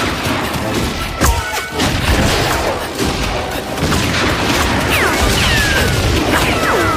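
Action film soundtrack: dramatic score mixed with explosions and crashing, with a heavy impact about a second in.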